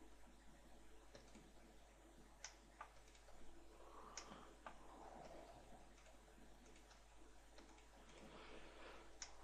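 Near silence with a handful of faint, separate computer mouse and keyboard clicks spread across several seconds, over a low steady hum.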